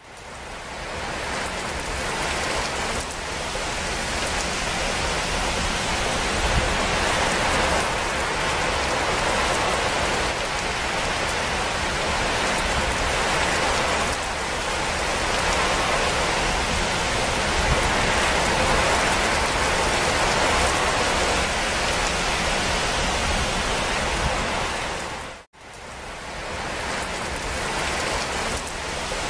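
Steady rain, an even hiss of rainfall. The sound cuts out abruptly about 25 seconds in and fades back up over a second or two.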